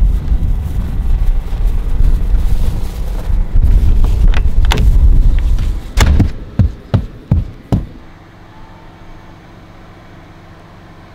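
A steady low rumble, then a string of sharp knocks and thumps of boots stepping into the ice-fishing house and across its floor, then a low steady room hum.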